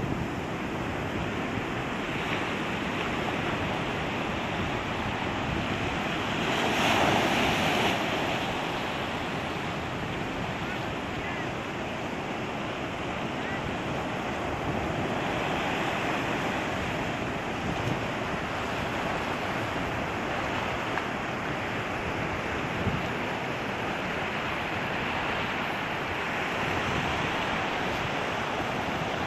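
Sea surf breaking and washing over a rocky shore, a steady churning wash with one bigger wave crashing about seven seconds in. Wind buffets the microphone.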